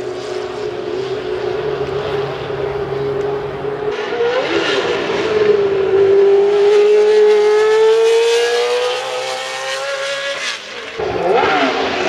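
Historic Formula One car engines at high revs. One car's note dips, then climbs steadily as it accelerates out of the corner. Near the end another car's engine takes over with a quick sweep in pitch.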